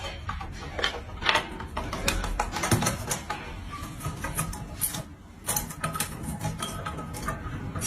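Irregular clicking and tapping, sharp and uneven in spacing, with a louder cluster about a second in and again around five and a half seconds.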